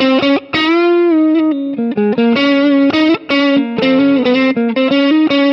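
Electric guitar played through a NUX MG-100 multi-effects processor on its '2D Crunch SL' crunch preset: a lead phrase of single notes with a light overdrive, one note bent about half a second in.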